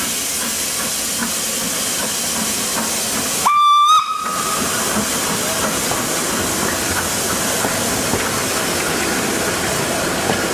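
Isle of Man Steam Railway Beyer Peacock 2-4-0 tank engine running past with a steady hiss of steam, giving one short whistle blast about three and a half seconds in, the loudest sound.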